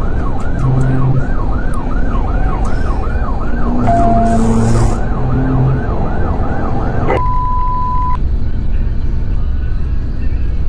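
Police siren on a fast yelp, about two rising-and-falling sweeps a second, over heavy road and engine noise from a patrol car in a high-speed pursuit. The siren cuts off suddenly about seven seconds in, and a short steady beep follows for about a second.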